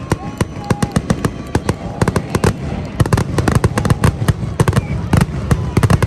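Fireworks display: aerial shells bursting in rapid succession, several sharp reports a second, coming thicker from about halfway through.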